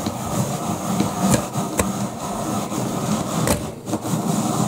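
Cut apple chunks being tipped and pushed into a ceramic slow-cooker crock: a continuous clatter with a few sharper knocks.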